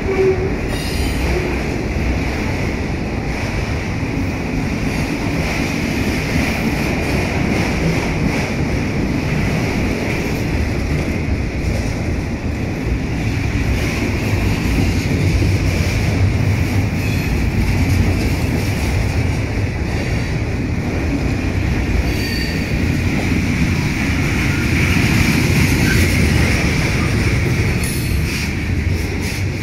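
Freight cars rolling past close by, their wheels rumbling on the rails with a steady high squeal from the wheels.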